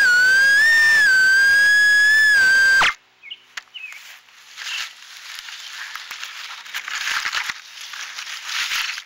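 The tiny motors of a Mobula 6 HD micro whoop drone whine loudly and steadily, pitch wavering slightly, while it sits in grass, then stop suddenly about three seconds in. Rustling and handling noise follow.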